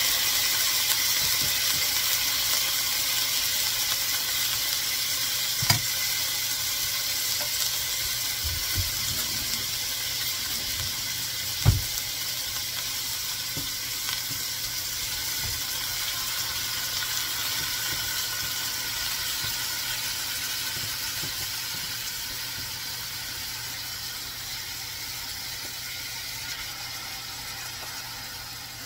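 Chicken pieces frying in hot olive oil and garlic in a stainless steel pot: a steady sizzle that slowly fades. There are two sharp knocks, one about six seconds in and a louder one near twelve seconds.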